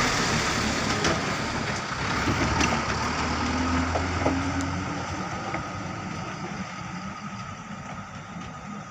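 Truck engine running, growing steadily fainter over several seconds as the truck moves away.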